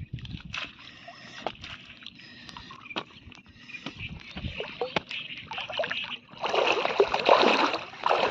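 Water splashing and slapping on a fine fishing net as small fish flap in the mesh and are picked out by hand, with many short splashes. About two-thirds of the way through it turns into a louder, continuous splashing and sloshing of water.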